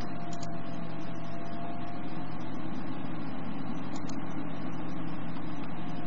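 Steady low mechanical hum with a faint thin tone above it. A few faint clicks come about half a second in, around four seconds and near the end.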